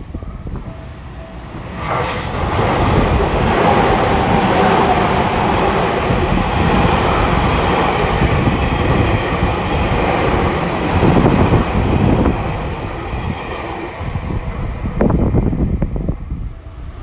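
Orange-striped Tobu electric commuter train passing close at speed without stopping: a dense wheel-on-rail rumble with a high whine above it, loud from about two seconds in and easing off after about twelve seconds. Another short surge of train noise comes near the end.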